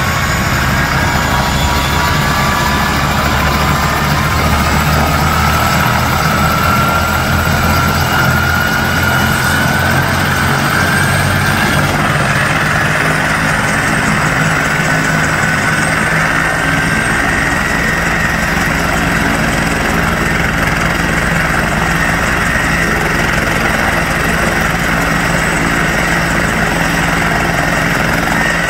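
Turbine helicopter running on the ground, a loud steady engine and rotor noise. Its whine rises slowly in pitch over the first half, then holds steady, while the low rumble thins out about halfway.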